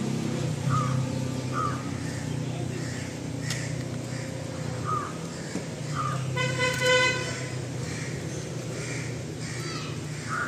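Street ambience with a steady low engine hum from traffic, and a vehicle horn honking once, briefly, about six and a half seconds in. A few short high chirps are scattered through it.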